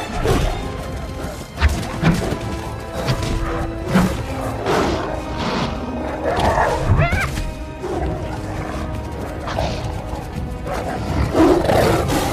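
Dramatic film score under a fight scene, with heavy thuds and hits and snarling animal growls, including a short rising cry about seven seconds in.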